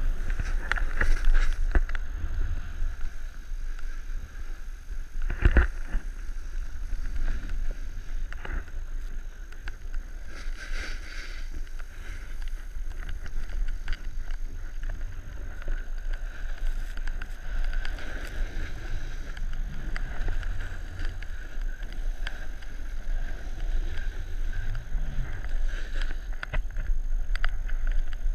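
Wind buffeting the microphone of a pole-held action camera while a snowboard slides and scrapes over snow, a steady rushing noise with scattered knocks. The loudest is one sharp knock about five and a half seconds in.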